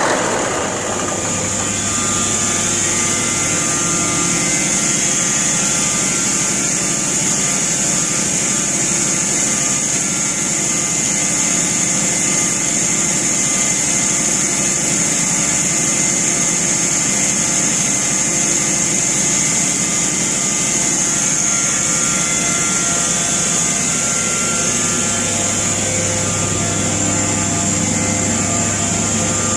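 Overhauled Deutz 1015 diesel engine running steadily, with a constant high whine over the engine note.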